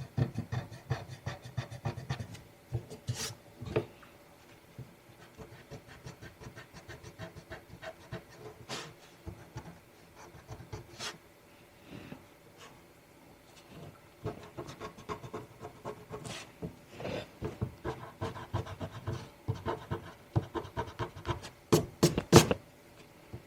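An eraser rubbing back and forth over pastel on Yupo synthetic paper in quick, repeated strokes, lifting the pastel to bring back highlights. A few strokes are sharper and louder, the loudest near the end.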